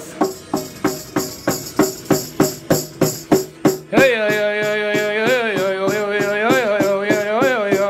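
A hand drum struck in an even beat, about three strikes a second. From about four seconds in, a man's wordless singing voice through a microphone joins it, holding long notes that bend and waver in pitch.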